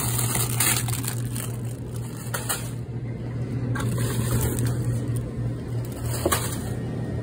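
Steady low hum of supermarket freezer cases, with a few soft knocks and rustles as boxes of frozen breakfast food are handled.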